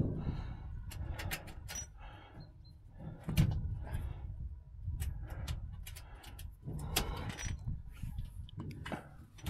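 Scattered knocks, clicks and scrapes of solar panel frames and mounting clamps being handled and nudged into line on the roof rails, over a low rumble.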